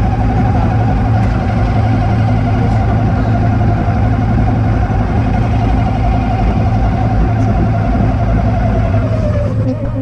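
CrossRC BC8 RC truck driving: a steady low drone with a wavering whine over it, which falls in pitch and fades near the end as the truck slows.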